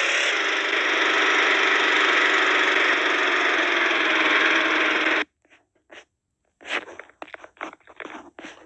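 Vehicle engine running steadily in a program's soundtrack, played through a TV speaker. It cuts off suddenly about five seconds in; after a short silence come scattered short clicks and knocks.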